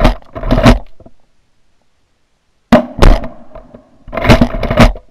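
A string of shotgun blasts fired at a passing duck: a pair at the start, another pair a little past halfway, and a third pair near the end, each shot sharp and very loud with a short ringing tail.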